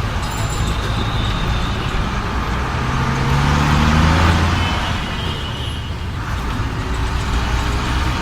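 Road traffic noise from engines of buses and trucks. One vehicle passes close, its engine note rising as it nears and loudest about four seconds in, then fading.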